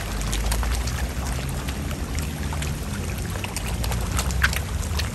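Dense crowd of koi jostling at the water's surface, a continuous wet splashing with many quick slaps and gulping smacks from mouths and fins breaking the surface.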